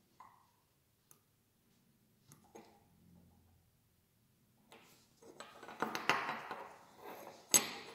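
Small metal chainsaw-shaped keychain and its carabiner clip being handled on a wooden table: a few light clicks, then from about five seconds in a run of metallic clinking and scraping, ending in one sharp clink near the end.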